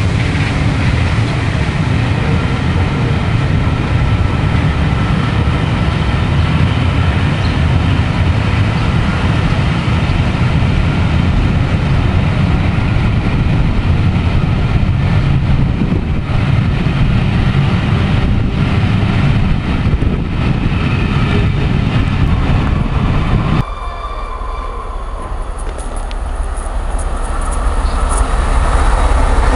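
Passenger coaches of an express rolling past at speed, a steady rumble of wheels on rail. About two-thirds of the way through the sound cuts to a quieter trackside spot, where an approaching train grows louder near the end.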